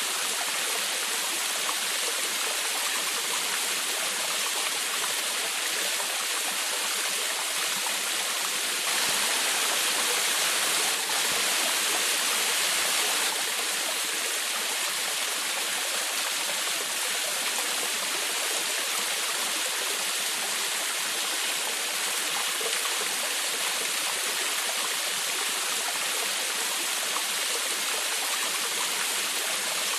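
Small waterfall in a forest stream, water splashing and rushing steadily, a little louder for a few seconds about a third of the way in.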